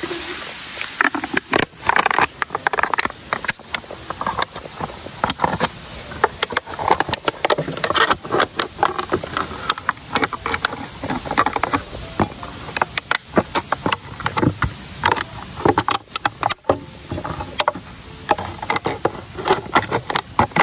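A plastic bag crinkling and a hand tool scraping during close-up handwork, a dense, irregular run of crackles and clicks.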